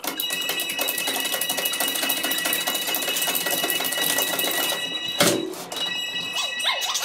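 Fast, continuous clattering rattle of clicks that stops suddenly after about five seconds, followed by one loud thump.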